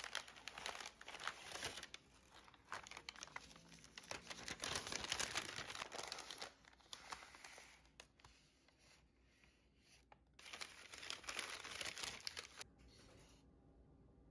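Tissue paper crinkling and rustling as it is unwrapped by hand from ceramic plates: a long stretch of crinkling, a quieter pause, then a shorter burst of rustling a little after the middle.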